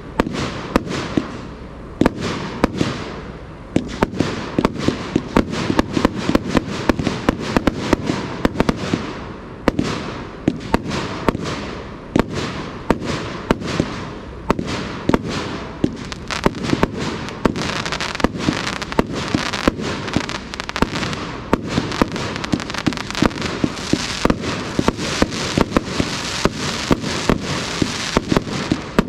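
A 200-shot compound firework cake firing a rapid stream of shots, several reports a second, over a continuous crackle of bursting stars.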